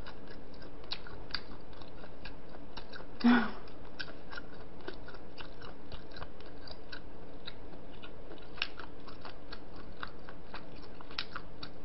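Close-miked chewing of food, with many soft wet mouth clicks and smacks, and one louder short mouth sound about three seconds in.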